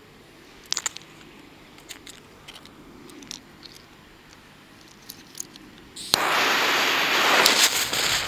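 Green fuse of a Spanish trueno firecracker catching and burning with a loud, steady hiss that starts suddenly about six seconds in. Before it there are only a few faint clicks and taps.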